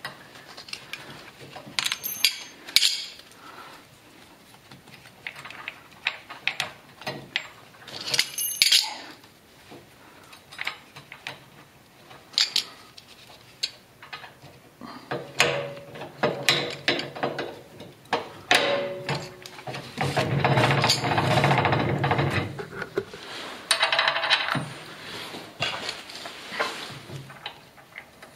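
Small metal parts clinking and clicking as a wheel is fitted onto a generator frame's axle with a washer and pin, with a longer stretch of rubbing and rattling about two-thirds of the way through.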